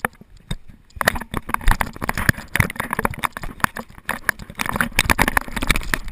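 Rough rattling and rubbing handling noise from a fisheye action camera being jostled and swung around, starting abruptly about a second in and running on as a dense, irregular clatter.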